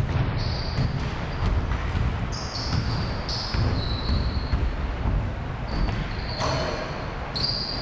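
Basketball game on a hardwood gym floor: the ball bouncing and feet thumping, with sneakers squeaking in many short, high chirps as players cut and stop. The sound echoes in a large hall.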